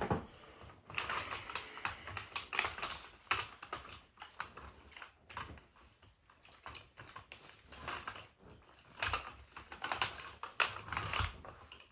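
Climbing sticks and their packaging being handled: an irregular run of light clicks, taps and rustles.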